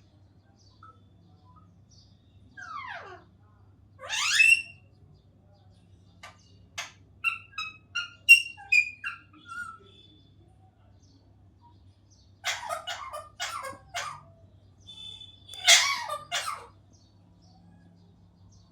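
Pet parrot calling in separate bursts: a falling whistle and then a loud rising whistle, a quick run of short chirps and clicks, then harsh squawks, the loudest one near the end.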